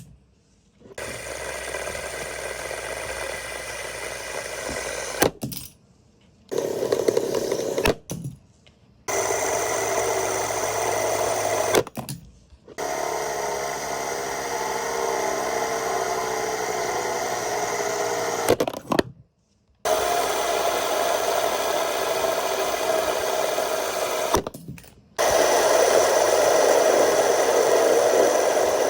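Fidget spinners whirring steadily in runs of several seconds, each run broken off abruptly by a short silence. In one run near the middle the pitch glides as the spin speed changes.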